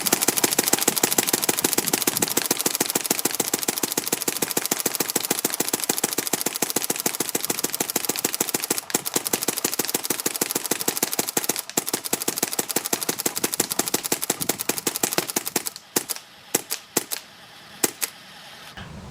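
Paintball marker firing a long, rapid, evenly paced string of shots on full auto, which stops about 16 s in, followed by a few separate single shots.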